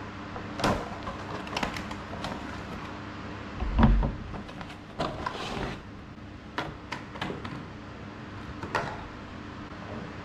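Cardboard product boxes being handled and shifted: a run of sharp taps, knocks and rustles, with one heavy thump about four seconds in.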